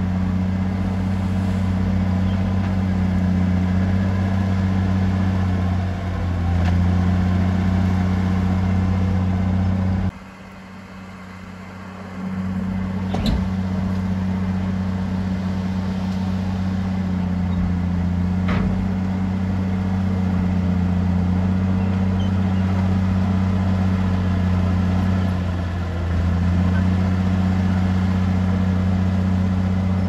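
Heavy diesel engine of a construction machine running steadily with a low drone. It drops away for about two seconds around ten seconds in, then comes back, with a couple of sharp knocks a few seconds later.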